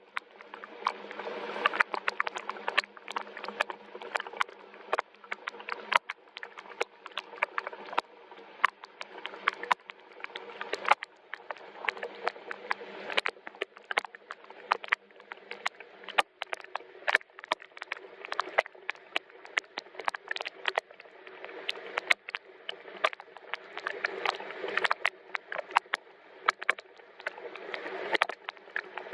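Gentle rain falling, a steady hiss with many separate drops tapping sharply and irregularly on a nearby surface.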